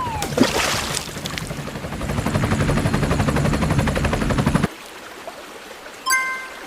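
Cartoon sound effects: a fast, rattling rumble builds and then cuts off suddenly, followed near the end by two short bell-like dings.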